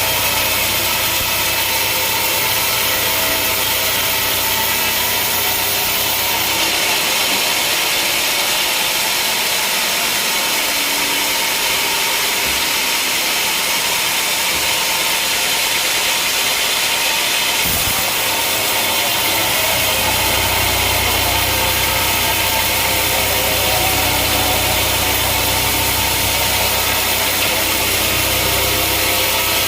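Sawmill machinery running while it saws a large log: a loud, steady mechanical whine and hiss. The deep hum drops out for about a dozen seconds in the middle.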